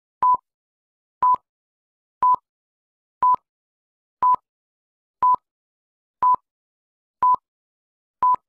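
Film-leader countdown beeps: a short, steady-pitched beep once a second, nine times, each with a small click where it starts and stops.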